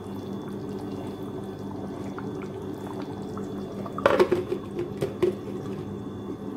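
Chicken curry simmering and bubbling in an iron kadai over a high gas flame. Sharp metal clattering about four seconds in and again a second later, from a lid or spoon against the pan.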